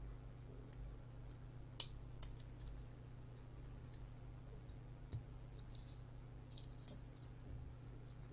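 Small plastic clicks and scrapes as a tiny Onion Omega computer board is handled and pushed onto a dock's pin headers, with one sharp click about two seconds in and a low knock about five seconds in, over a low steady hum.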